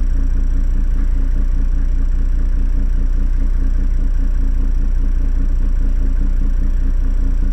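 Toyota 105 Series LandCruiser engine idling steadily, heard from inside the cabin as a low, even rumble.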